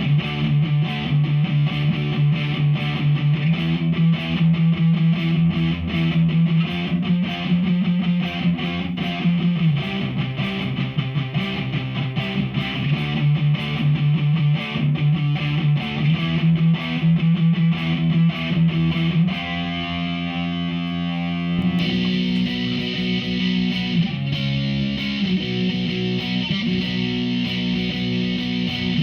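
Electric guitar played through a Behringer V-AMP PRO amp modeller on a distortion sound, riffing with quick picked notes. About two-thirds of the way through a chord is left ringing for about two seconds, then the riffing starts again.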